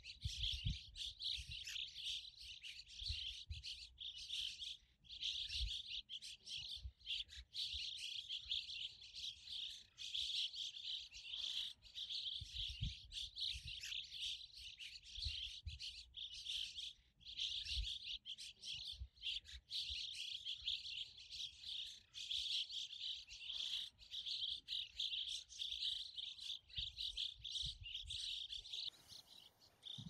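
A group of juvenile cliff swallows chirping and twittering, dense and continuous, with irregular low thumps underneath.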